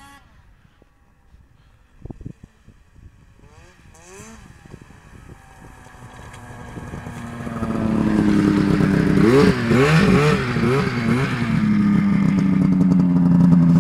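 Two snowmobiles, an Arctic Cat F6 and a Polaris, approach from far off, their engines growing steadily louder. Their pitch rises and falls as they pull up close, then settles into a steady idle near the end.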